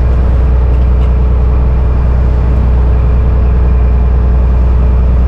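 An engine running steadily: a deep, even hum that holds unchanged, with a thin steady tone above it.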